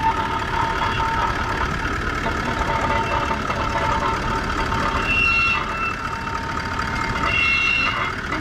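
A four-wheel-drive vehicle's engine running steadily at idle, with two short high squeaks about five and seven and a half seconds in. The driver suspects the squeak comes from a suspension spring.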